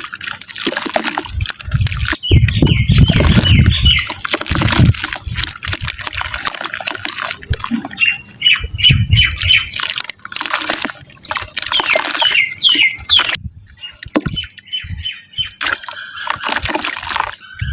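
Soft, wet mud crumbling and breaking into water in irregular splashes and crunches. Short runs of rapid bird chirps sound over it several times.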